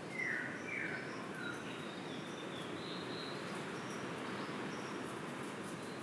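Birds calling in forest: a few short, loud notes in the first second and a half, then softer, higher notes scattered through the rest, over a steady hiss of insects and forest background.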